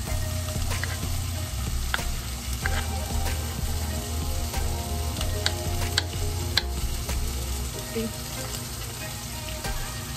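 Turkey bacon and garlic sizzling steadily in a frying pan, with a few sharp knife taps on a wooden cutting board as garlic is chopped.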